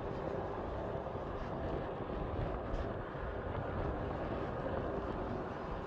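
Four-engined jet airliner on its landing rollout, the engines giving a steady rumble with a faint hum running through it.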